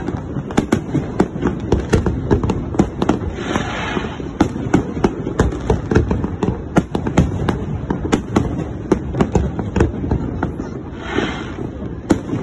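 Aerial fireworks display: a dense, unbroken barrage of shell bursts, several bangs a second, with two brief hissing rushes, one about a third of the way in and one near the end.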